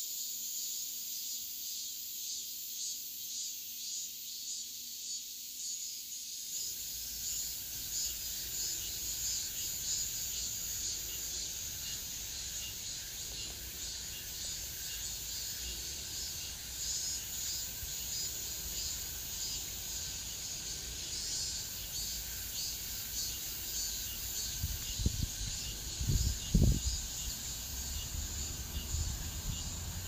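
Cicadas buzzing in a steady, high-pitched chorus with a fast pulsing rhythm. A low rumble comes in a few seconds in, with a few low bumps near the end.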